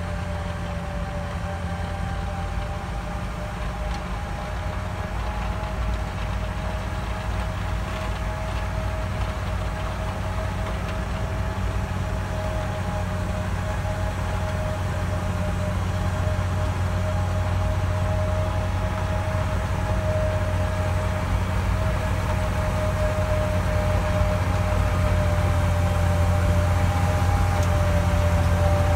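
Larue 7460 snowblower's 450 hp Allis-Chalmers engine running under load while throwing snow into a dump truck alongside. A steady deep drone with a high whine over it, growing gradually louder as the machine comes closer.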